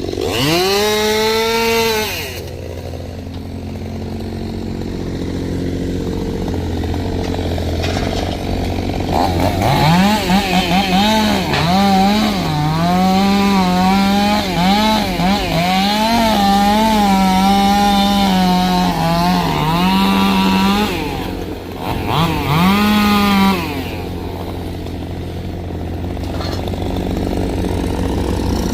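Chainsaw idling and revving up to cut, its pitch climbing and wavering as it works through wood, then dropping back to idle between cuts. There is a short rev at the start, a long cut from about ten seconds in, and another short rev near the end.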